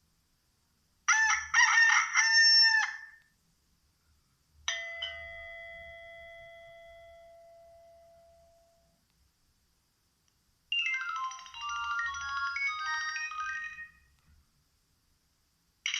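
Nokia 6103 mobile phone playing a series of short ringtones or alert tones in turn. First comes a brief layered burst about a second in, then a single chime that rings out and slowly fades over about four seconds, then a quick run of melody notes.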